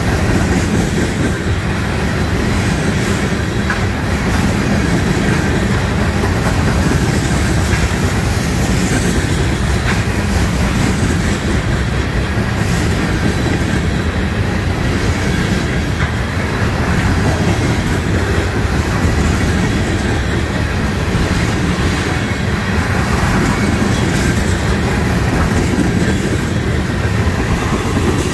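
Loaded freight cars of a trash train rolling past close by at steady speed: continuous wheel-on-rail noise, even in level, with clicks as the wheels cross rail joints and faint steel-wheel squeal.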